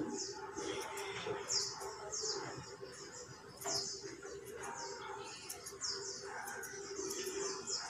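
Small birds chirping, short falling chirps repeated about once or twice a second.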